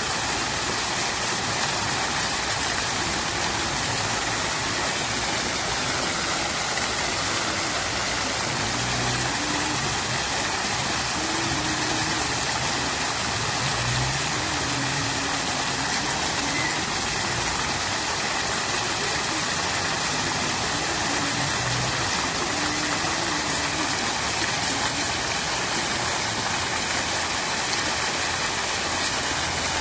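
Fountain water splashing and trickling steadily, with a faint wavering low hum underneath.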